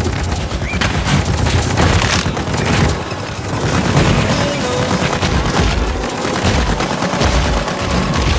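Film action-scene soundtrack: a dense run of loud booms and rapid bangs like gunfire, mixed with music.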